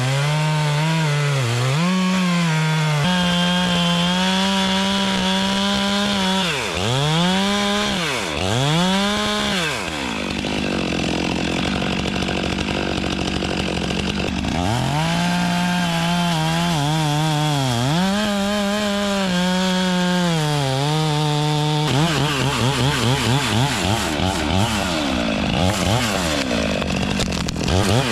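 Gas chainsaw running at high revs, its engine pitch dropping sharply and climbing back several times as it is throttled and worked.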